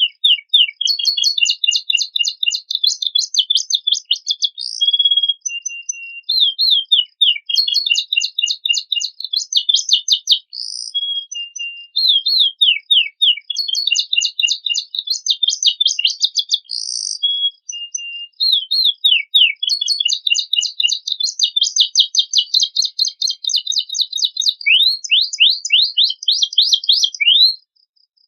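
Domestic canary singing long, fast trilling song phrases in bursts with short pauses, a 'fill' song that includes phrases learned from other birds. A faint steady high tone runs underneath, and the song stops about a second before the end.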